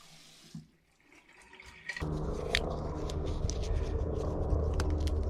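Warm engine oil pouring out of a motorcycle's open drain hole into a drain box. It is a steady splashing stream that starts abruptly about two seconds in, after a near-quiet start.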